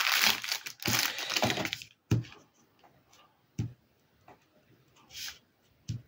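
A paper tissue and its plastic pack crinkling as the tissue is pulled out and unfolded, for about two seconds. Then a few soft knocks as a plastic self-inking stamp is pressed down onto the folded tissue to blot out its excess ink.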